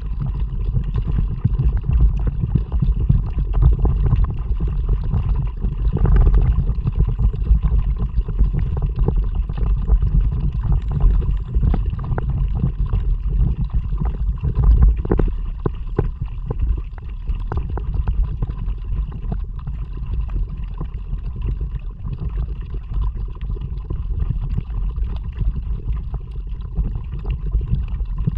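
A kayak moving through water, with water gurgling along the hull and paddle splashes over a steady low rumble of wind on an action camera's microphone. The sound is muffled.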